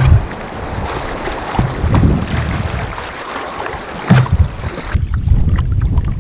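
Rushing creek water through a rapid around a kayak, with gusts of wind buffeting the microphone. The water noise drops off suddenly about five seconds in as the kayak reaches calmer water, leaving mostly wind rumble.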